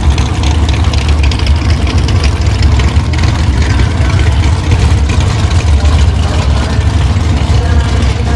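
Drag racing car engine idling loudly with a steady low rumble.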